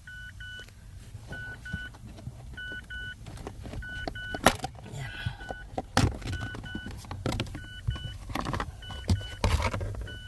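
An electronic warning chime from the car beeps in pairs about every second and a quarter. Over it come sharp metal clanks and clicks of hand tools working on the steering intermediate shaft's 12 mm joint bolts, with a steady low hum underneath.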